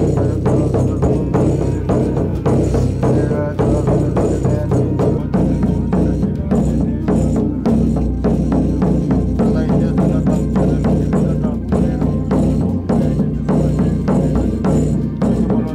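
Buddhist lama beating a large Tibetan frame drum (nga) with a curved stick in a steady, repeated beat, over a low, droning chant of puja prayers.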